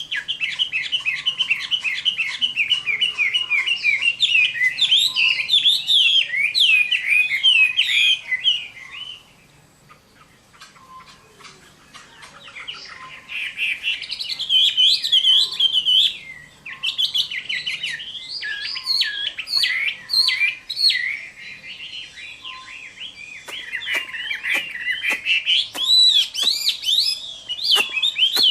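Chinese hwamei singing a loud, rapid warbling song of quick rising and falling notes. It breaks off for a few seconds about a third of the way in, then starts again. Several sharp clicks come near the end.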